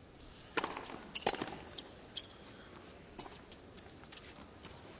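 Tennis ball struck by racquets during a point on a hard court: a sharp serve hit about half a second in, a return about a second in, then fainter hits and bounces.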